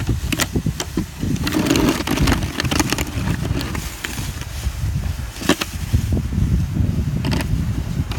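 Snow plow trucks passing: a heavy low engine and road rumble that surges unevenly, with scattered sharp knocks and clatter, the strongest about five and a half seconds in.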